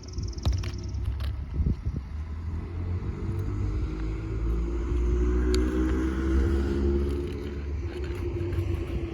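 Low rumble of a motor vehicle running nearby, its engine tone swelling through the middle and easing near the end, with a few sharp knocks in the first two seconds.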